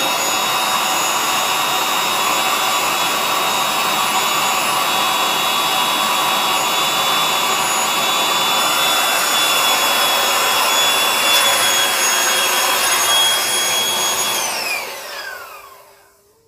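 Handheld electric air blower running steadily with a whine, blowing air into a vinyl inflatable chair. Near the end it is switched off and its whine falls in pitch as the motor winds down to a stop.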